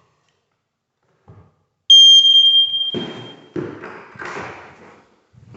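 Smoke alarm sounding one loud, high-pitched beep about two seconds in, fading out over about a second and a half: the alarm answering its test button, so its new battery is good. Knocks and rustling handling noise follow.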